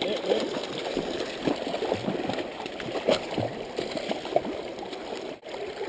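Shallow rocky creek gurgling and trickling over stones.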